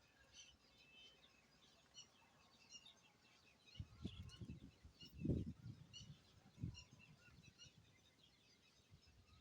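Faint chorus of small birds chirping. A few low, muffled thumps come in the middle, the loudest about five seconds in.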